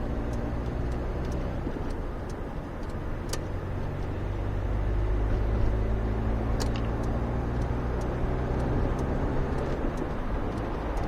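Citroën BX 14 RE's four-cylinder petrol engine running steadily while driving, heard inside the cabin over tyre and road noise; the engine is noisy. A couple of faint clicks come through, about three and six seconds in.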